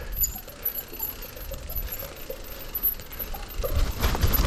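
Mountain bike freehub ticking as the bike coasts. Near the end a louder rushing noise of tyres on the dirt trail builds as the bike picks up speed downhill.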